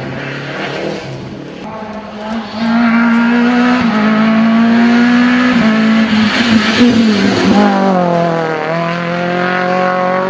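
Rally car engines. First a car's engine fades as it drives away. Then a second car's engine comes in loud at full throttle, changing gear twice, before the pitch drops as it lifts and brakes for a bend and rises again as it powers out.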